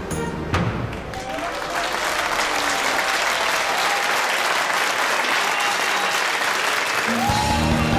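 An audience applauding, the clapping growing louder over the first few seconds. Music stops about a second in and starts again near the end.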